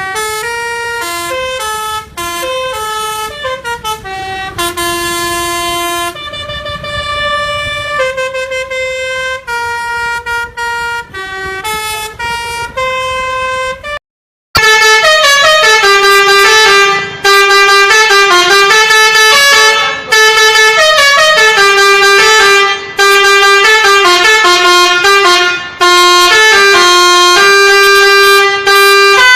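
Telolet musical horn (a basuri multi-tone horn) playing a melody of held notes that step up and down. It breaks off for a moment about halfway and then goes on louder.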